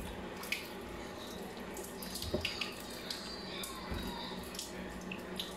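Tap water running steadily into a sink as fruit is washed by hand, with scattered light clicks and knocks of the fruit and dishes being handled.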